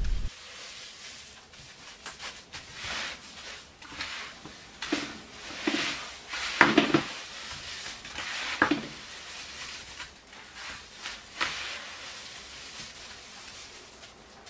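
Hands squeezing and kneading a salt-crust mixture of moist sea salt and egg white in a baking tray: irregular wet scrunching, with a few louder squeezes a little past the middle.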